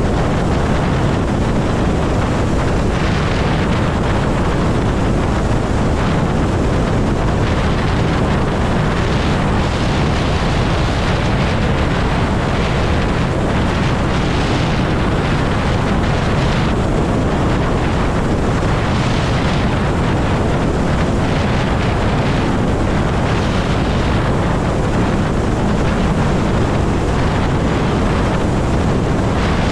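Steady wind rush buffeting a helmet-mounted microphone at highway speed on an electric Zero motorcycle, with tyre and road noise beneath and no engine sound.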